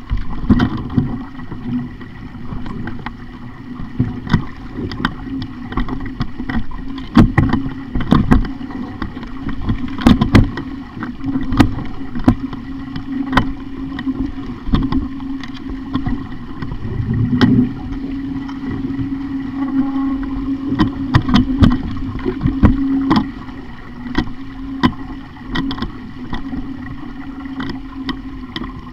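Sailing dinghy under way: water washing against the hull, with frequent irregular sharp knocks and thumps from the boat and a steady low hum throughout.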